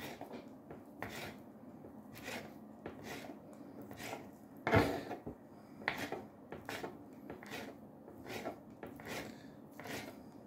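Small knife slicing through fresh mozzarella on a wooden cutting board, the blade tapping the board with each cut, about one cut a second, with one louder knock a little before the middle.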